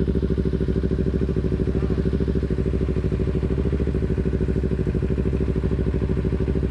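Motorcycle engines idling steadily, a fast, even pulsing over a low hum.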